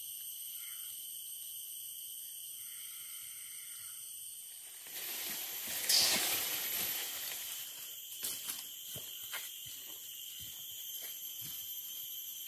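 Steady high-pitched insect chorus of the tropical forest, several shrill tones held without a break. About five seconds in, a louder swell of rustling rises and fades, followed by scattered light taps and snaps.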